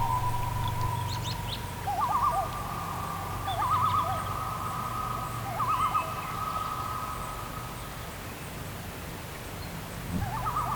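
A bird calling: a long, held, whistle-like note, broken by quick wavering trills about two, four and six seconds in and again near the end.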